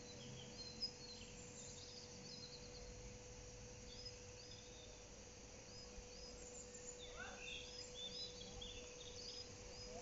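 Faint birdsong: short high chirps and twitters come and go, busier near the end, over a steady low hum.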